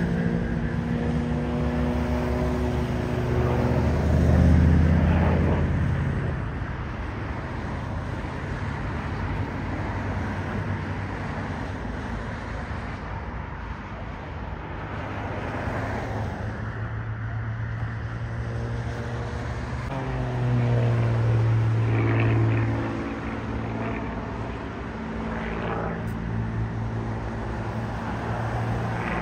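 A small aerobatic propeller plane's engine drones, its pitch and loudness swelling and fading as it manoeuvres. It is loudest about four seconds in and again about two-thirds of the way through.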